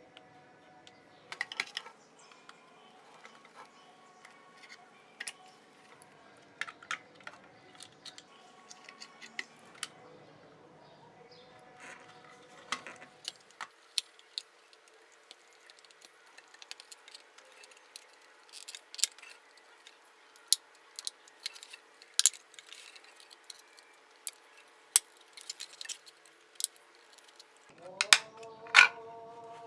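Scattered small clicks and taps of hand tools and plastic parts being handled while a headphone is taken apart, with the loudest snaps near the end, over a faint steady tone.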